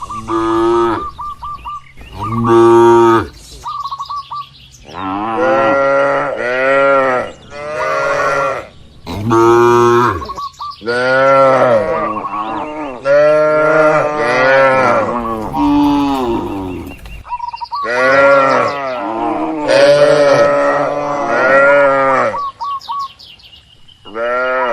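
Several cattle mooing over and over, their long calls often overlapping, with short gaps between.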